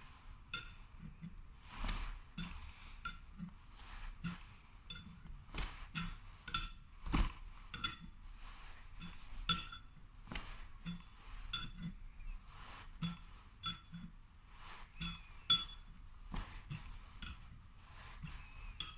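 Spanners clinking repeatedly against the locked nuts on a tap's threaded stabilising leg as they are turned in reverse to unscrew the leg from the tap body. Short sharp metallic clinks, some ringing briefly, come irregularly about once or twice a second.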